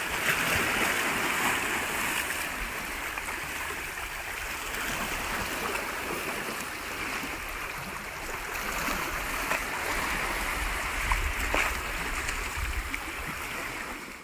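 Small sea waves lapping and washing against shoreline boulders, a steady rushing wash of water.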